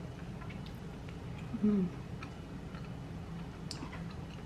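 Quiet eating sounds: faint, irregular clicks of a metal fork against the cake container, with chewing, and a short hummed "mm" about a second and a half in.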